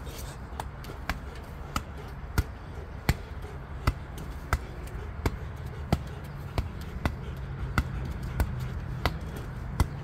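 A ball bouncing over and over at a steady pace, about three bounces every two seconds, each bounce a sharp thud.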